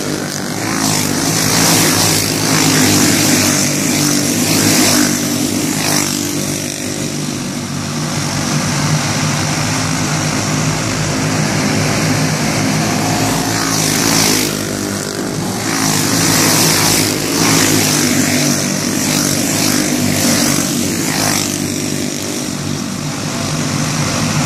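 A pack of Pro Clone dirt-oval racing karts with single-cylinder clone engines running hard around the track, in a constant buzzing drone that swells three times as the pack passes close.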